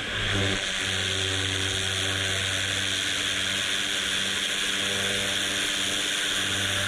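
Pressure washer lance blasting a high-pressure jet of water onto the edges of paving slabs, a loud, steady hiss with a low hum underneath.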